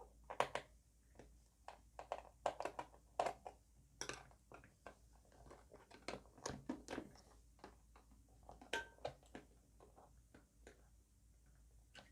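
Faint, irregular clicks and taps of a screwdriver working the screws of a plastic multimeter case and the case being handled as it is opened.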